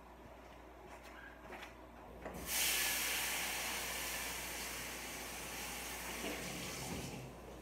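Water running from a kitchen tap: a steady hiss that starts suddenly about two and a half seconds in and stops near the end.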